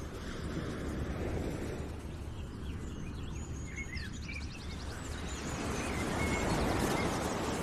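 Outdoor nature ambience: a steady rushing noise that swells and eases, with birds chirping over it, most busily about two to four seconds in and again near the end.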